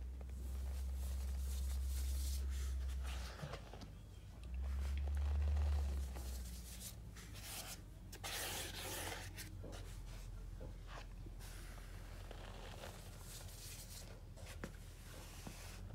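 Hands crushing and crumbling a clump of dry chalky powder and rubbing it between the fingers: soft crunching and hissy, gritty rustling, busiest around the middle. A low hum sits underneath in the first few seconds.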